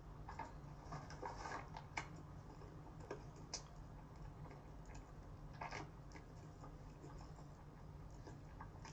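Faint, close-miked mouth sounds of a person chewing a mouthful of bibim-naengmyeon cold noodles: soft wet smacks and a few sharper clicks over a low steady hum.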